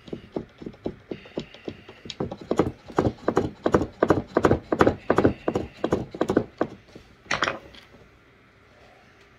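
A wood screw being driven by hand with a screwdriver into pre-drilled plywood, creaking and clicking with each turn in a steady rhythm of about three or four a second, loudest in the middle. Near the end a short clatter as the screwdriver is set down on the plywood bench.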